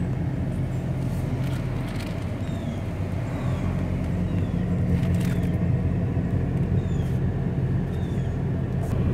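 Steady engine and road rumble heard from inside a vehicle's cab. Short high chirps, each falling in pitch, repeat about once a second, with a few light clicks among them.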